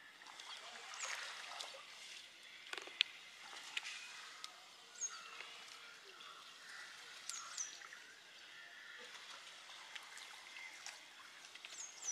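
Wet fishing net being hauled hand over hand over a boat's side, water trickling and dripping off the mesh, with scattered small clicks and light splashes. A few short high chirps come through faintly.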